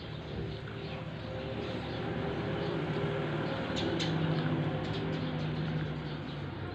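A motor vehicle's engine humming as it passes, growing louder to a peak about four seconds in and then fading, with a sharp click near the loudest point.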